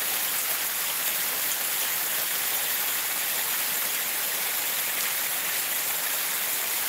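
Water rushing and splashing steadily down a small stepped concrete channel, a man-made cascade, with rain falling.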